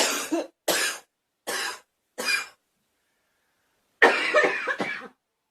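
A girl coughing: four short coughs about two-thirds of a second apart, then, after a pause of about a second and a half, a longer bout of several quick coughs in a row.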